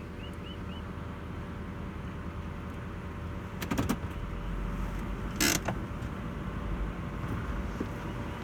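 Steady low hum of a car's interior with the car stopped or rolling slowly, broken by a few sharp clicks about three and a half seconds in and a short loud rustling burst about five and a half seconds in. Three faint short rising chirps sound near the start.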